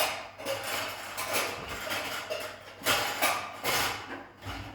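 A bowl being handled and set down: several separate knocks and clatters, the loudest near the start and again around three seconds in.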